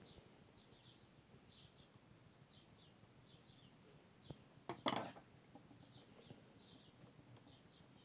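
Near silence with faint, short, high bird chirps recurring about every second, often in pairs. About halfway there are a couple of clicks and a brief scrape: a screwdriver tip being moved onto the screws of a plastic screw terminal block.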